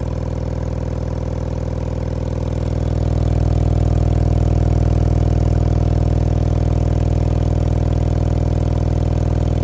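A pair of Sundown Audio U-6.5 6.5-inch subwoofers, out of any enclosure, playing a steady low bass tone at long cone excursion: a deep hum with a stack of overtones. It grows louder about three seconds in, then holds steady.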